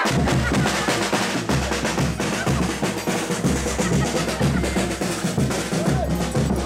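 Folia band's drums bursting in suddenly with fast snare-drum rolls and beats over a low bass-drum pulse: the chula the band plays between the clown's verses.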